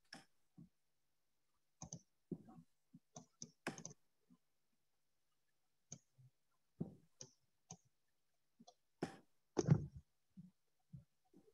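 Faint, irregular clicks and soft knocks at a computer desk, some twenty of them with dead silence between, the loudest two near the end; the presenter is working his mouse.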